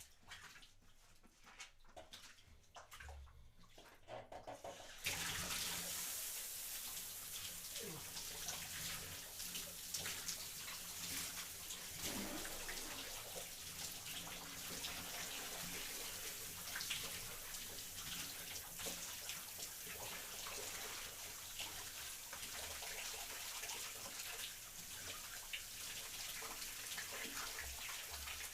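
Shower running: after a few faint knocks, the water comes on suddenly about five seconds in and sprays with a steady hiss.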